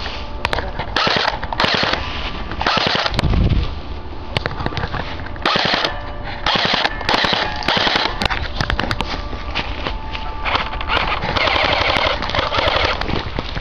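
Airsoft MP5 firing repeated rapid full-auto bursts, a dense rattle of shots in bursts of about half a second to two seconds, with single sharp clicks in between.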